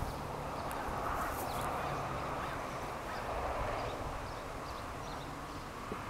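Honeybees buzzing around an open hive: a steady low hum.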